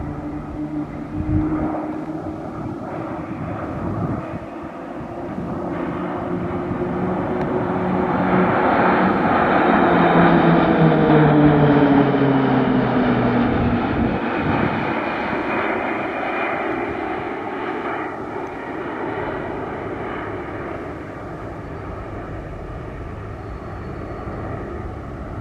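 PZL-130 Orlik turboprop trainers flying past. The engine and propeller sound swells to its loudest about halfway through, drops in pitch as the aircraft pass, then fades.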